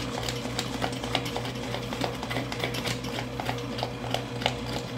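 VEVOR auto-feed electric drain snake running forward: its motor hums steadily while the spinning 3/8-inch cable clicks and rattles irregularly as it feeds down a floor drain.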